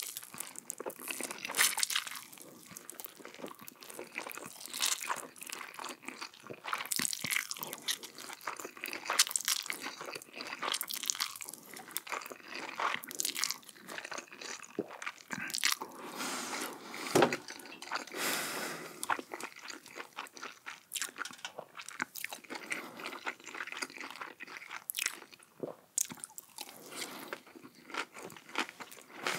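Close-miked bites and chewing of crunchy food: many crisp crackles with frequent louder crunches.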